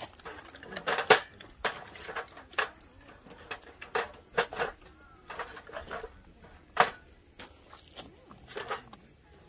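Split firewood knocking and clattering as pieces are laid by hand into a stainless steel fire pit: about a dozen irregular knocks, the loudest about a second in and near seven seconds.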